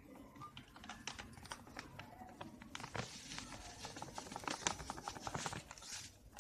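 Salt crystals poured from a small steel cup into a large steel bowl: a faint, dense trickle of tiny ticks and hiss as the grains land on the steel and on the chilli powder.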